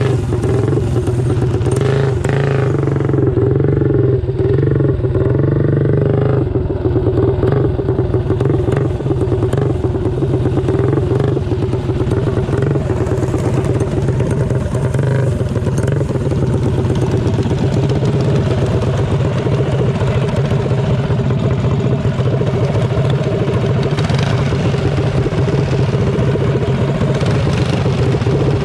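Small single-cylinder mini bike engine running hard and close, with the revs rising and falling for a few seconds early on, then holding a steady drone.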